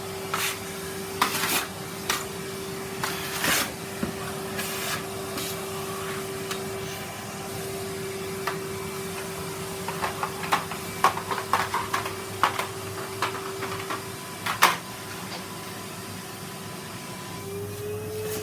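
Henry (Numatic) cylinder vacuum cleaner running with a steady hum, with irregular knocks and rattles as it works over the floor. A quick cluster of the knocks comes about ten to twelve seconds in.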